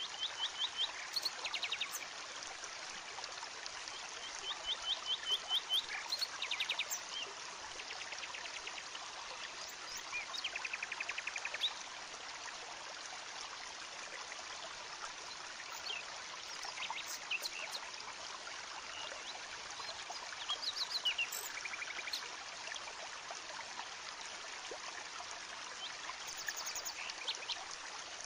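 Open wood campfire burning with a steady hiss and a few scattered sharp crackles. Over it, a bird calls in quick trains of short high chirps several times, mostly in the first twelve seconds and again about two-thirds of the way through.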